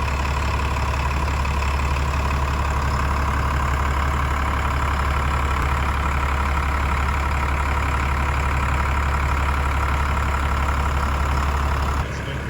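Vehicle engine running steadily, a deep even drone that cuts off abruptly near the end.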